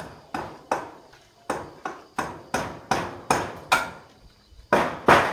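Hammer striking the hut's wooden frame in a steady run, about three blows a second, each ringing briefly. The blows pause for a moment near four seconds in and come back louder near the end.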